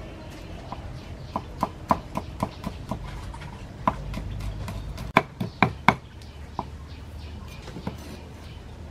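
Cleaver chopping red chilies on a wooden chopping board: a run of sharp knocks about four a second, a louder cluster of strokes a little over five seconds in, then a few scattered chops.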